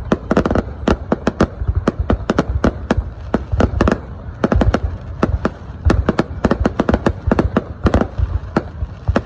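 Fireworks going off: a rapid, irregular string of sharp cracks, several a second, over a constant low rumble of booms.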